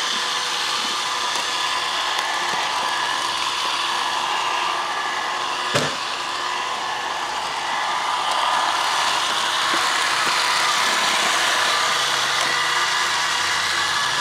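Roomba robot vacuum running: a steady motor whir with several high whining tones, getting a little louder about eight seconds in. A single sharp knock about six seconds in.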